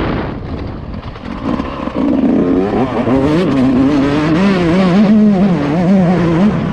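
Yamaha YZ 144 two-stroke motocross engine on track: throttle eases off for about two seconds, then the revs climb and rise and fall again and again as the rider works the throttle.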